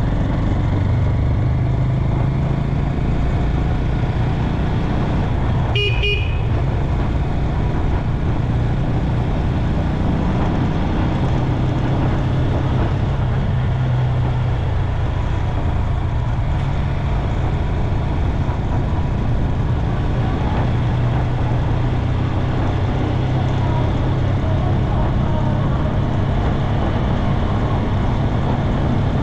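Small motorcycle engine running steadily at cruising speed, with road and wind noise. A short horn beep sounds about six seconds in.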